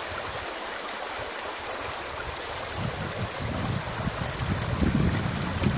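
Shallow creek running over stones, a steady rush of flowing water that grows louder and fuller about halfway through.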